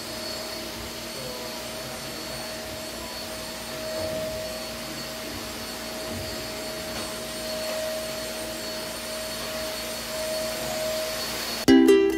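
Steady whir of an electric motor, like a household appliance, with a faint constant hum. Plucked ukulele music starts abruptly just before the end.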